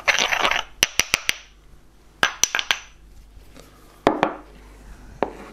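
Stone mortar and pestle clinking against a glass bowl as ground herbs are knocked out: quick runs of sharp clinks with brief scraping in the first three seconds. A heavier knock about four seconds in as the stone mortar is set down on a wooden chopping board.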